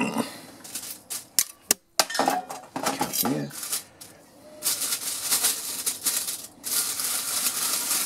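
Wood pellets pouring and rattling down into the metal feed of a homemade rocket pellet stove. There are a few sharp clicks early on, then two long spells of dense rattling from about halfway.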